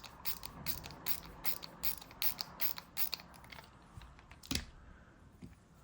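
Hand ratcheting screwdriver's ratchet clicking as the handle is swung back and forth: an even run of sharp clicks, about five a second, for some three seconds, then a single click near the end.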